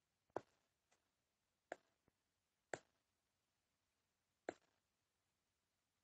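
Sharp, separate clicks over near silence: four clear ones spaced about a second apart, with a couple of fainter ticks between them.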